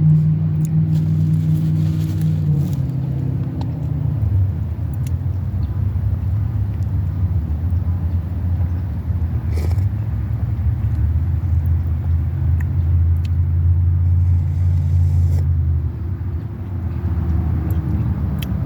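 Low engine-like rumble running steadily, dropping in pitch about two and a half seconds in and changing again near the end, with a few faint clicks over it.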